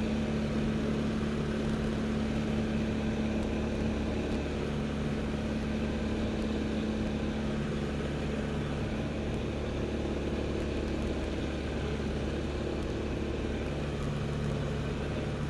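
L-13 Vivat motor glider's engine and propeller running steadily, a constant drone heard from inside the cockpit.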